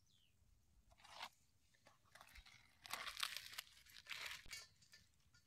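Dry bajra bhakri (pearl millet flatbread) being torn and crumbled by hand: faint, crisp tearing and crunching in several short bursts, the longest about three seconds in.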